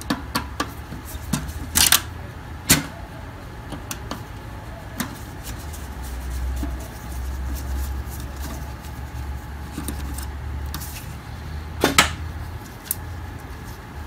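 Screwdriver working out a screw from the fuser unit's metal frame in a laser printer, with scattered sharp clicks and taps of the tool against metal and plastic parts, loudest about two seconds in and again near the end, over a low steady hum.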